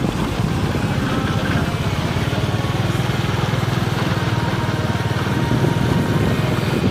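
A heavy vehicle's engine running steadily, a fast, even chugging.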